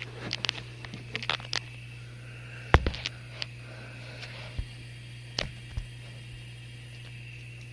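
GE Profile dishwasher running its final rinse, a steady low motor hum under a faint hiss. Scattered sharp clicks and knocks come through, the loudest nearly three seconds in.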